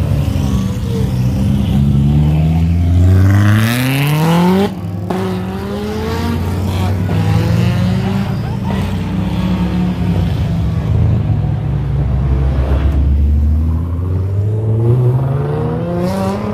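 A car engine accelerating hard, its pitch climbing steeply then dropping abruptly about four and a half seconds in and climbing again; it settles into a steady run and rises once more near the end.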